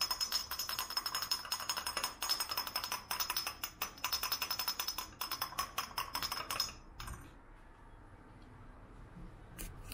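A metal teaspoon beating coffee in a small tea glass, fast continuous clinking against the glass as the coffee is dissolved and frothed. It stops suddenly about seven seconds in.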